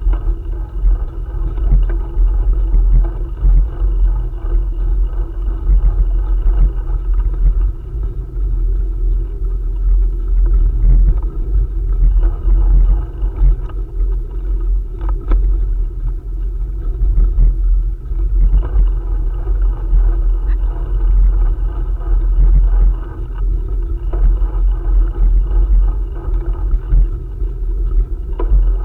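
Steady low rumble of a bicycle being ridden along a trail: tyre rolling noise and wind on the microphone, with a few small clicks and knocks.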